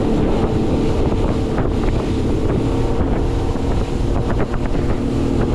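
Outboard motor of a Highfield Sport 390 inflatable boat running steadily under way, with wind buffeting the microphone and water rushing along the hull.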